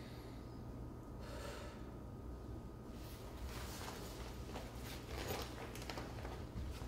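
A man breathes in sharply through the nose as he wakes, then from about three seconds in his clothes rustle and a backpack scuffs as he sits up and rummages in it, over a low steady hum.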